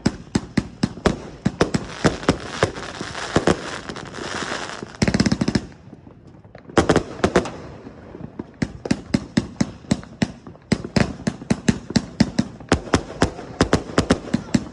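King Longhorn 245-shot consumer firework cake firing a rapid volley of sharp bangs, several a second. The bangs pause briefly about six seconds in, then resume at a steady pace.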